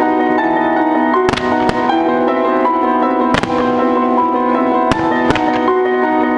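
Starmine fireworks bursting in a string of sharp bangs, about half a dozen, over music with piano that plays on throughout.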